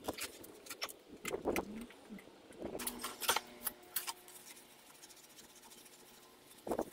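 Scattered light clicks, taps and rustles as a gloved hand handles a cable against the metal chassis rail, with a slightly louder cluster near the end.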